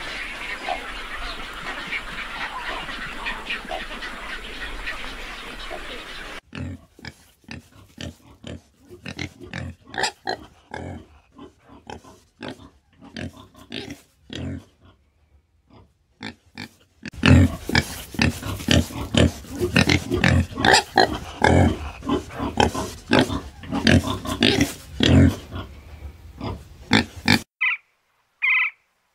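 Warthog grunting and snorting in quick, short grunts, in a sparse spell and then a dense, louder one. Before it comes a few seconds of steady outdoor hiss, and near the end a couple of short, evenly spaced high calls begin.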